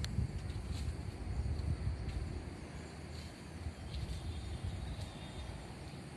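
Outdoor ambience: a low rumbling noise, louder at first and easing off, under a faint steady high hum.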